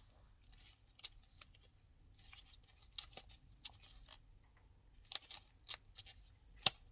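Faint, scattered clicks, crackles and rustles of a resin casting being worked out of a flexible silicone mold by hand, with one sharper click near the end.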